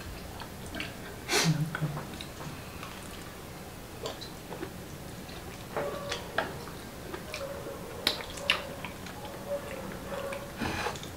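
Close-miked eating sounds: wet chewing and mouth noises with many small sharp clicks, as of chopsticks on bowls and shells. A short louder noise comes about a second and a half in, and another near the end.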